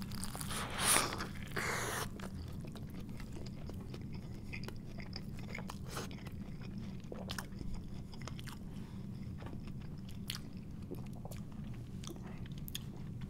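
Close-miked eating of a homemade bacon cheeseburger: a loud crunching bite in the first two seconds, then steady chewing with many small wet mouth clicks over a low steady hum.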